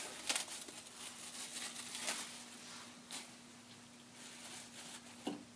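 Faint handling noises: a handful of soft clicks and rustles from hands working at a thermal label printer, over a steady low hum.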